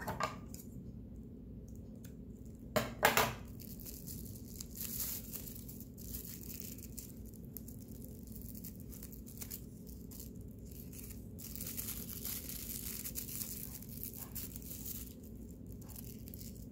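Plastic-bag yarn (plarn) crinkling and rustling as it is pulled through loops with a crochet hook, in irregular bursts, with two louder crinkles about three seconds in.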